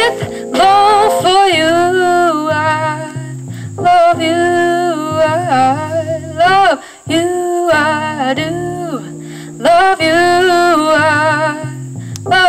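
A woman singing lead through a vocal microphone in long, held phrases with vibrato, over a quieter instrumental backing with low bass notes. The phrases break off briefly twice, about halfway through and again shortly after.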